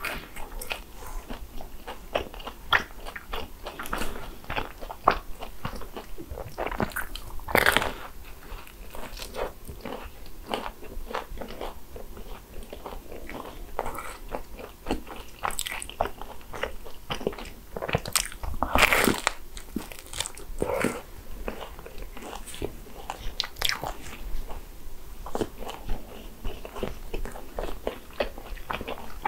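A person biting into and chewing crisp croffles (croissant waffles): a dense run of crunches and crackles. Heavier crunching bites come about a quarter of the way in and again about two-thirds of the way through.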